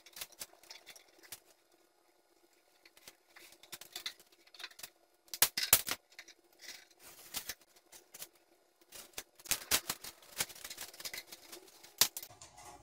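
Scattered clicks and taps of 12-gauge electrical cable and a small hand tool being handled at a breaker panel. A cluster of sharp clicks comes about five and a half seconds in, and a busier run from about nine to twelve seconds.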